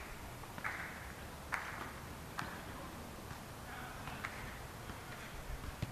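Faint outdoor background with a few soft taps and several short scuffing sounds.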